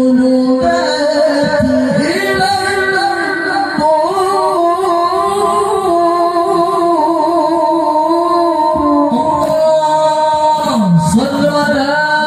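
A qari's solo melodic Quran recitation in a high, powerful male voice through a microphone and loudspeakers: long held, ornamented notes that slide between pitches, with a deep downward-and-back glide about ten seconds in.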